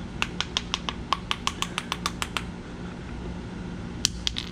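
A quick run of light clicks, about seven a second for some two seconds, then two or three more near the end: sockets and tools being handled and picked out of an open socket set.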